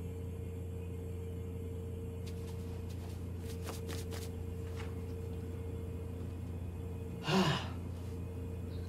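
Steady low electrical hum with a few faint clicks, then one short, sharp gasp of breath about seven seconds in.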